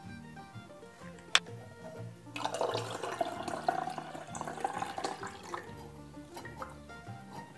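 Buttermilk pouring from a glass churn jar through a mesh strainer and metal funnel into a glass jar, starting about two and a half seconds in and running for about three seconds, over soft background music. A single sharp knock about a second and a half in.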